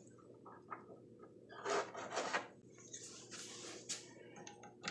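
Parts being fitted by hand onto a chainsaw sharpener's arbor as the new grinding wheel and its retainer go on: a few light clicks and two short scraping rubs, about two seconds in and again around three seconds, over a faint steady hum.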